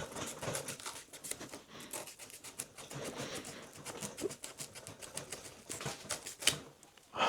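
A multitool's S35VN steel knife blade sawing through thick rope, a continuous run of quick scratchy cutting strokes. A sharper click comes about six and a half seconds in.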